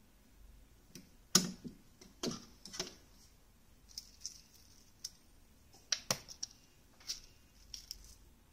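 Plastic ET 100D night-light wall plate clicking and tapping against the outlet and wall as it is fitted and pressed into place by hand. It makes an irregular run of light, sharp clicks, the loudest about one and a half seconds in.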